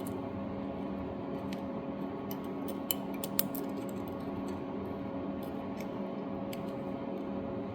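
Light metallic clicks and scrapes from hand work on a Honda Z50's valve adjuster, typical of a feeler gauge being slid through the valve-lash gap to check for a slight drag, over a steady background hum.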